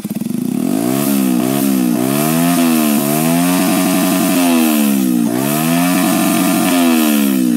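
Yamaha Jupiter Z motorcycle's small single-cylinder engine revved up and down over and over: quick blips of the throttle at first, then longer rises and falls in pitch.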